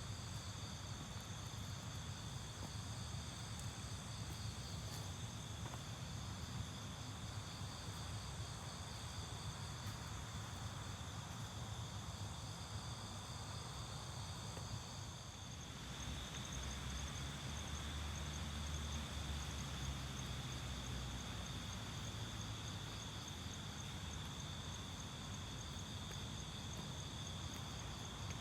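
Night insect chorus, crickets and katydids calling steadily in several high pitches over a low rumble. About halfway through, the mix of insect calls changes and the rumble grows louder.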